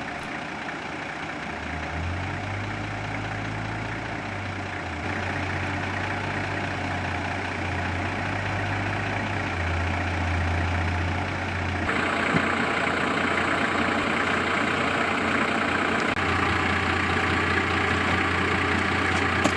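Off-road four-wheel drive's engine idling and running at low revs as the vehicle is moved slowly up the rocky track. The sound changes abruptly about twelve seconds in, becoming brighter and a little louder.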